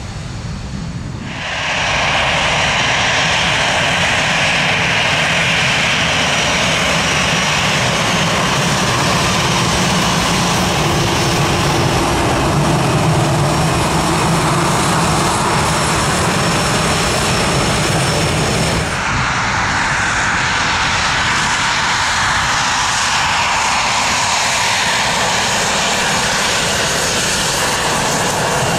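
Jet airliner engines running as landing aircraft roll along the runway. The noise steps up sharply about a second and a half in, then changes abruptly about two-thirds of the way through as one aircraft's sound gives way to the next.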